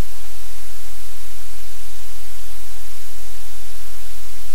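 Loud, steady static hiss with a low hum underneath, unchanging throughout: electrical noise on the audio feed rather than a sound in the room.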